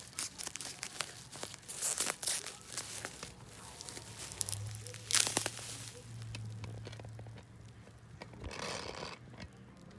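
Packaging being crinkled and torn open by hand as a used doll is unwrapped: irregular crackling and rustling, with louder tearing rustles about five seconds in and again near the end.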